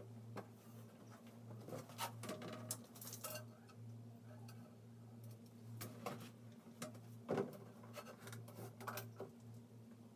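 Scattered light knocks, taps and scrapes of a plastic sign and a tape measure being handled against a porcelain toilet tank, the strongest knock about seven seconds in, over a steady low hum.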